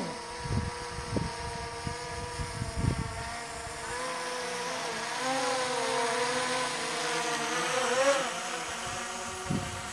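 Quadcopter drone's propellers buzzing as it hovers and comes down toward the listener, a steady whine whose pitch wavers and rises a little, loudest about eight seconds in. Low thumps of wind on the microphone in the first three seconds.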